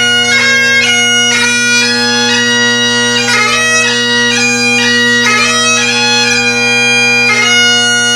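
Great Highland bagpipe played solo: steady drones under a chanter melody, with quick grace notes between the melody notes.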